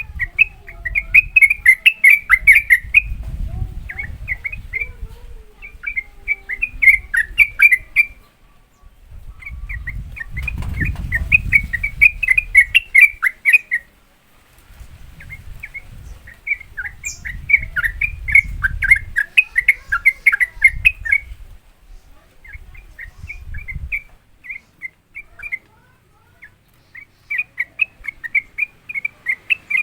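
Sooty-headed bulbul (trucukan) singing its rapid chattering 'ropel' song: fast runs of sharp notes in phrases of two to four seconds, repeated with short pauses, with a low rumble beneath several of the phrases.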